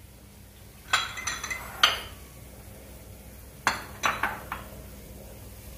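Mustard seeds starting to pop in hot oil in a kadai: scattered sharp pops, a few about a second in and another cluster near four seconds, over a faint low hiss.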